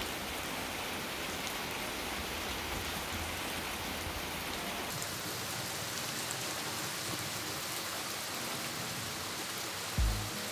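Steady rain falling on a garden patio and planters. A short low thump near the end.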